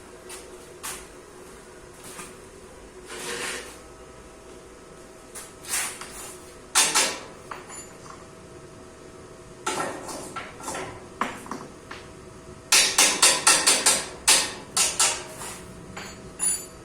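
Hammer blows on metal in a workshop: scattered single knocks, then a quick run of about eight blows about three-quarters of the way through, over a steady faint hum.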